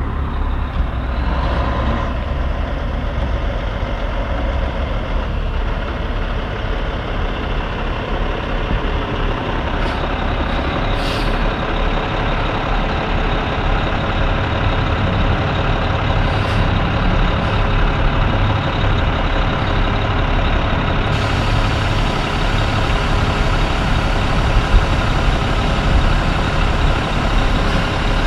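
Heavy-haul truck's diesel engine running steadily at low revs, louder in the second half, with a few short hisses of air from the air brakes about ten seconds in and again a few seconds later.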